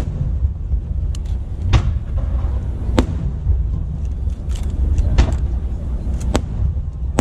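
Fireworks bursting over the sea: four sharp bangs about a second or two apart, over a steady low rumble.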